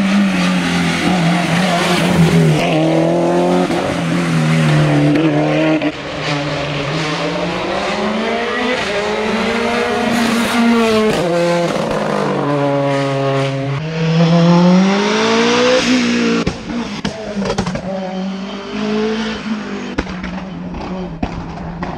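Hill-climb racing car's engine at high revs, its pitch climbing and falling again and again with gear changes and lifts for corners. About two-thirds of the way through it drops a little quieter, with sharp crackles.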